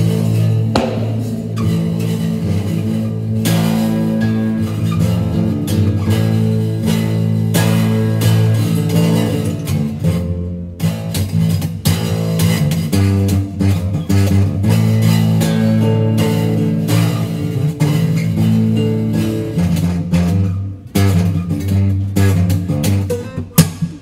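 Acoustic tenor bass guitar tuned to a drone, played with plucked and strummed notes over sustained low droning strings, ringing out inside a concrete drainage tunnel. The playing stops briefly twice, about ten and twenty-one seconds in.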